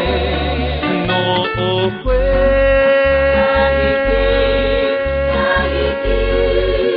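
Guitar-based Polynesian song playing, with a pulsing bass line under a melody that has vibrato; one melody note is held for about three seconds in the middle.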